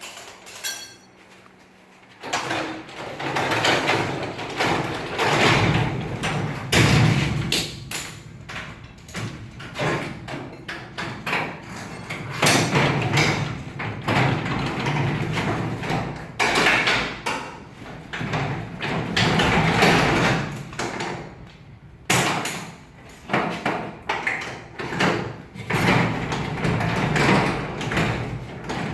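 Garage door and its hardware being worked on while the rollers are replaced: a long run of irregular knocks, clatter and scraping that starts about two seconds in.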